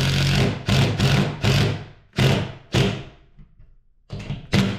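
DeWalt cordless impact driver driving a lag screw into a wall stud through a monitor wall-mount plate, run in a string of short trigger bursts. One longer burst comes first, then quick bursts with a pause of about a second before two more near the end, as the lag is snugged down.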